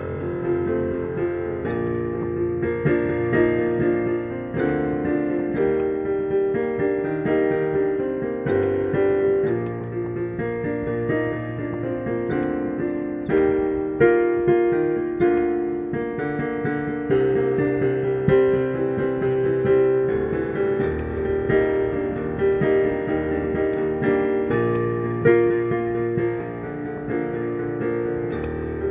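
Background piano music: a melody over held chords that change every second or two.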